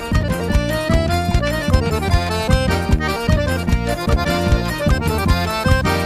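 Instrumental break of Northeastern Brazilian forró-style music: an accordion playing the melody over a bass line and a steady percussion beat, with no singing.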